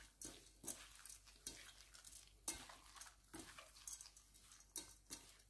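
Faint, irregular rustling and soft taps of a gloved hand tossing and mixing damp, softened flattened green rice (khao mao) in a stainless steel bowl.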